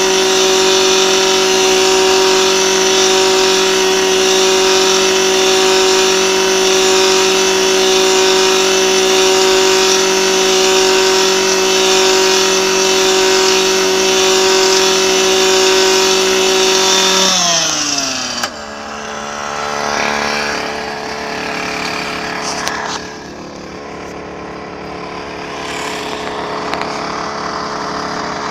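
Handheld engine-powered earth drill running at high, steady revs while boring into frozen ground. About two-thirds of the way through its pitch falls away as it is throttled down and it cuts out. A quieter engine keeps idling through the rest, with some clatter.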